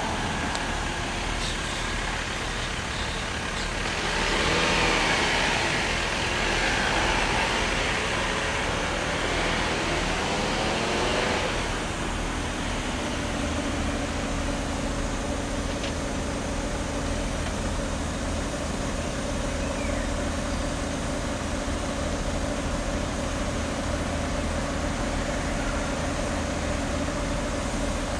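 Road traffic noise with one vehicle passing louder from about four to eleven seconds in, then a steady low hum.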